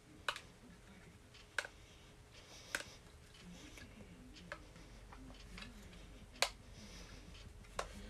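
Objects being handled at close range: about six sharp, irregularly spaced clicks and taps over a quiet background. The loudest comes about six and a half seconds in.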